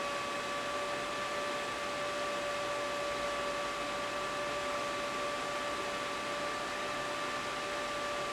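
Steady hiss with a constant whine, a small fan running without change.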